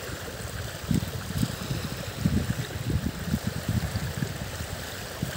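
Strong wind buffeting the microphone in irregular low gusts, over a steady rush of wind-driven water.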